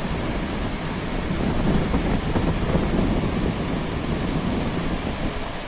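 Rough surf breaking and washing along the shore, with wind buffeting the microphone.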